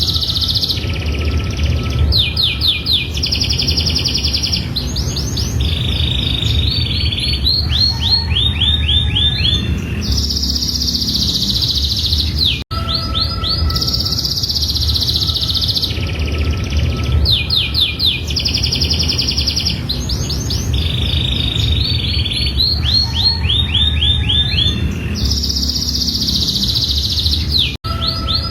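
Domestic canary singing a long, continuous song of rapid trills and rolling repeated-note phrases, the kind played to make other canaries answer. The same stretch of song repeats twice, with a brief drop-out between repeats, over a steady low hum.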